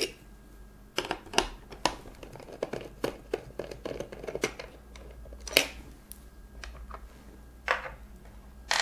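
Small clicks and scrapes of a screwdriver working the screws out of the plastic AM4 retaining clips on a motherboard, with the plastic parts handled, and a few sharper knocks, the sharpest about halfway through.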